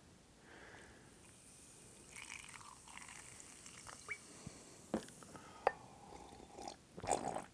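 Peach soda poured from a glass bottle into a cup, with a faint high fizzing hiss, then a light knock as the bottle is set down on the table, and drinking sounds near the end.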